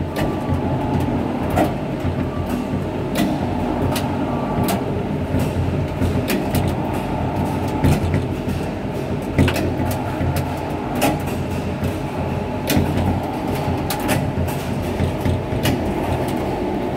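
Gateway Arch tram capsule descending its track, heard from inside the capsule: a steady low rumble with sharp clacks every second or two.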